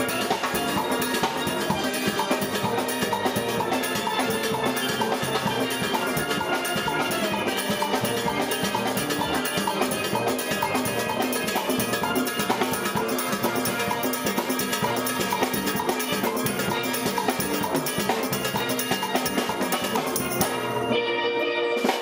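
Steel band playing: many steel pans of different pitches struck with rubber-tipped sticks, a dense ringing melody over a steady beat.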